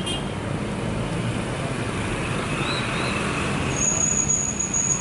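A motor vehicle engine running steadily over outdoor background noise. A thin, high, steady tone joins about four seconds in.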